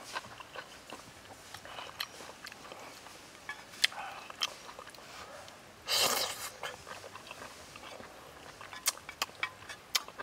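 A person chewing stir-fried squid, with scattered wet mouth clicks and smacks. The loudest sound is a slurp about six seconds in, as a piece is sucked off the chopsticks.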